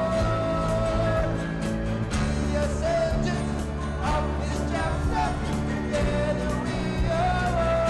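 Music: an upbeat pop-style song with a steady beat, a bass line and long held melody notes.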